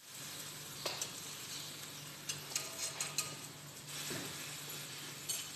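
A few light clinks of a metal spoon against a steel mixing bowl of pancake batter, over a steady hiss and a low hum.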